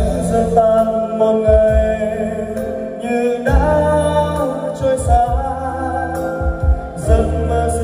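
A man singing karaoke into a handheld microphone over a backing track with a strong bass line and steady beat, played loud through an event sound system of line-array speakers and subwoofers.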